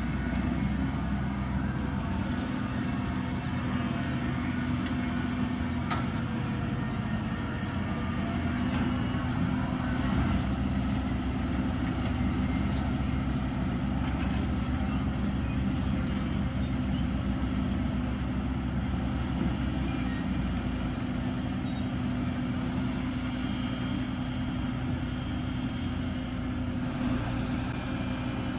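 Heavy diesel earthmoving machinery running steadily, a continuous engine drone with a low rumble, and a single sharp click about six seconds in.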